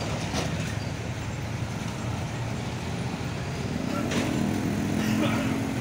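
Mixed road traffic passing: cars, motorcycles and trucks, engines and tyres on the road. About four seconds in, one engine's hum comes up and holds to the end.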